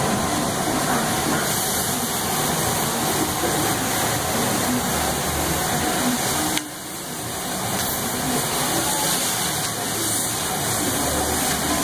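Noodles, meat and vegetables sizzling on a large round flat-top griddle as they are stir-fried, a steady frying hiss. The hiss drops suddenly just past halfway and builds back up.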